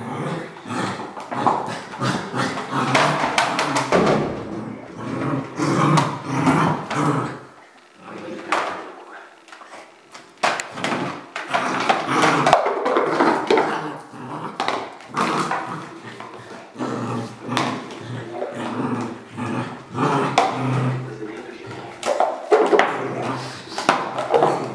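Red merle Border Collie puppy barking and growling again and again as it plays, with its plastic bowl knocking and scraping on the tile floor. There is a quieter gap of a second or two about a third of the way in.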